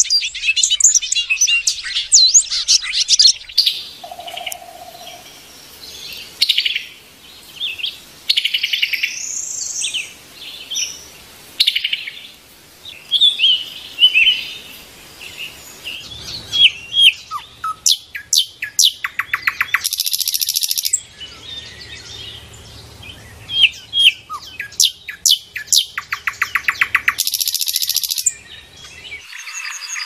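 Recorded calls of several small wild birds spliced together: a changing run of chirps, whistled notes and fast rattling trills that switches abruptly from one bird to the next. It is played as a lure call for trapping small birds.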